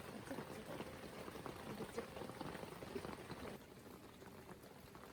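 A pot of liquid bubbling at a rolling boil, a dense crackling patter that drops away abruptly about three and a half seconds in.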